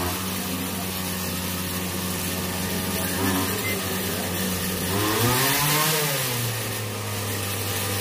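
An engine running steadily in the background, its pitch rising and falling once about five seconds in, like a brief rev.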